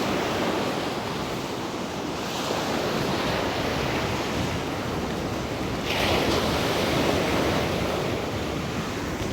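Rough winter sea: heavy surf breaking and washing in continuously, with a louder surge of crashing water about six seconds in. Wind buffets the microphone throughout.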